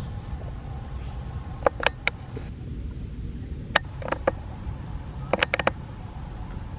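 Dry leaf litter crackling in short clusters of sharp clicks as macaques move about on it, three times, over a steady low rumble.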